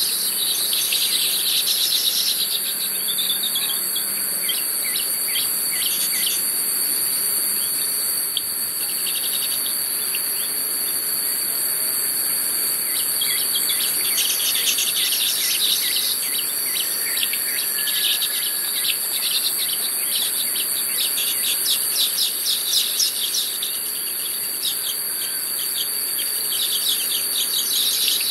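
Baya weavers chattering in repeated bursts of fast, buzzy ticking, each a second or two long, over a steady high-pitched insect drone.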